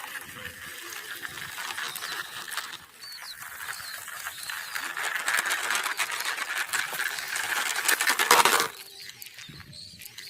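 Plastic toy vehicles rattling and clicking in a fast, dense clatter that builds louder, then drops off sharply about three-quarters of the way in.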